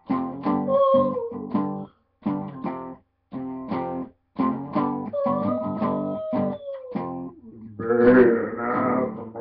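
Acoustic guitar strummed in short chords with brief gaps between them. Over the chords, a wordless voice holds a sliding tone that rises and falls, twice. Near the end a louder, wavering wordless vocal sound comes in.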